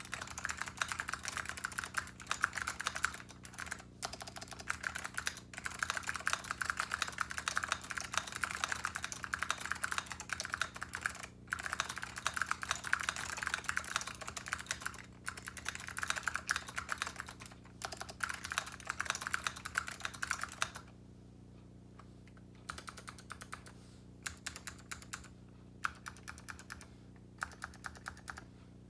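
Mechanical keyboard with vintage SKCM Blue Alps clicky switches on an aluminium plate and AEK keycaps, typed on fast in a dense run of deep clicks. About two-thirds of the way through, the typing thins out to slower, separate keystrokes.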